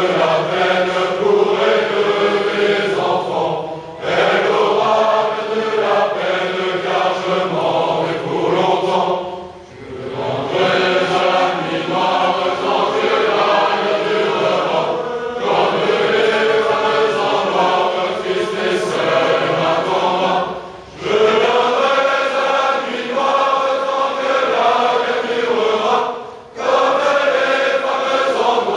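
A large group of young men singing a traditional French song together as a choir, in long phrases with a short pause for breath about every five to six seconds.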